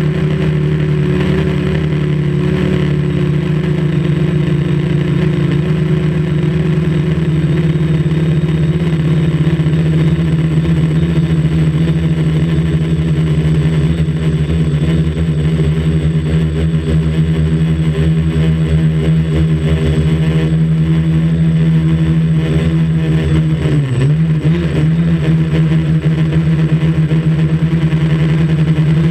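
Quadcopter's motors and propellers humming steadily and loudly, heard close up from the camera mounted on the craft; the pitch dips briefly and recovers about 24 seconds in, as the motors change speed.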